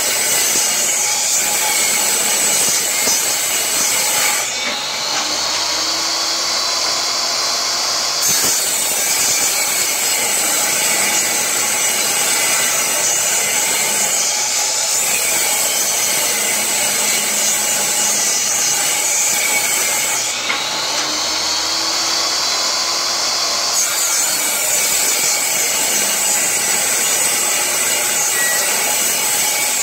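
Portable table saw ripping an old pressure-treated board lengthwise: the motor's whine and the blade cutting through wood run continuously. Twice, about five and twenty seconds in, the pitch sags for a few seconds as the blade takes more load, then recovers.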